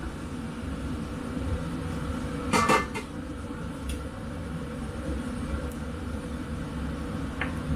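Cookware clattering once on the stove about two and a half seconds in, as the non-stick frying pan is set up with a little oil to heat, followed by a few light clicks. A steady low hum runs underneath.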